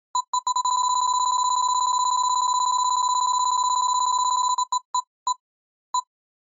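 Electronic roulette-style sound effect: a fast run of identical high beeps for about four seconds, then slowing to single beeps spaced further and further apart, like a selector coming to rest.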